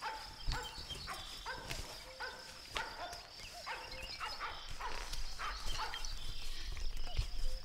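Farmyard animal calls used as a sound effect: short pitched calls repeating about twice a second over a steady high tone.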